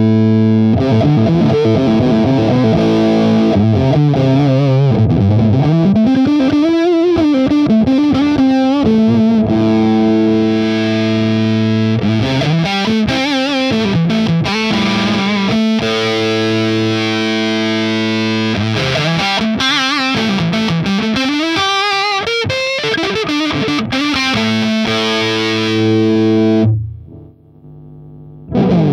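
Electric guitar through a Caline CP-504 M-Fuzz classic fuzz pedal, a big, thick fuzz tone: long held notes alternate with lead runs full of string bends and vibrato. The playing stops suddenly near the end, then a new bent note starts.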